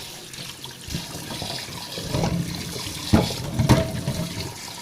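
Cold tap water running over freshly boiled eggs to cool them, with a few sharp knocks, the loudest two near the end.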